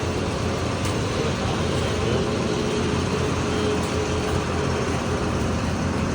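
A motor or machine running steadily, a constant drone with a faint steady tone.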